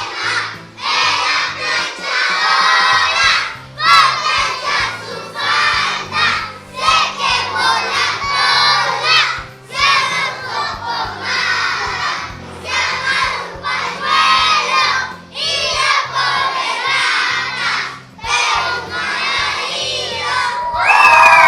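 A group of children's voices calling out together in short repeated bursts over a background music bed, with a loud drawn-out shout near the end.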